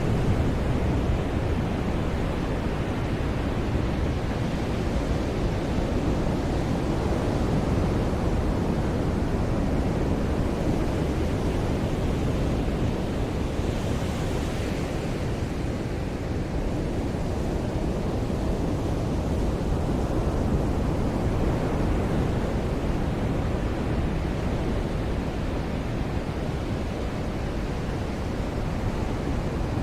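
Ocean surf washing steadily onto a beach, with one wave breaking a little brighter about halfway through.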